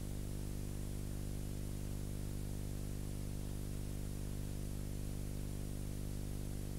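Steady electrical hum, a buzz of many even overtones, under a constant hiss. It is the noise floor of a transfer of silent film with no other sound.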